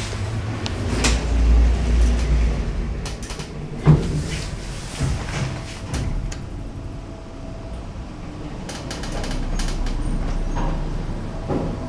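Car-park passenger lift by Ascensores Domingo at work: sliding doors and the car's machinery, with a low rumble about a second in and a sharp knock about four seconds in.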